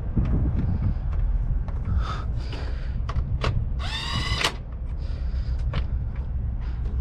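Scattered light clicks and knocks of hand work on truck parts, with one short rising squeak about four seconds in, over a steady low rumble.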